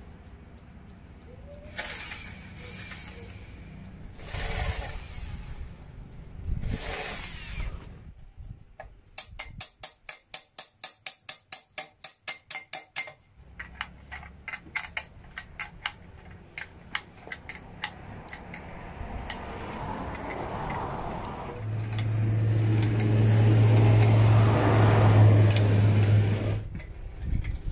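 Power drill running in three short bursts as it countersinks bolt holes in a wooden board, followed by a run of rapid clicks, about four or five a second, for several seconds. Later a louder steady humming whir builds up and runs for about five seconds before stopping.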